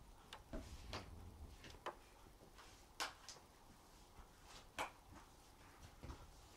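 A foam clog knocked and scuffed about on a wooden floor by a playing kitten: scattered soft knocks and scrapes, the two loudest about three seconds in and just before five seconds.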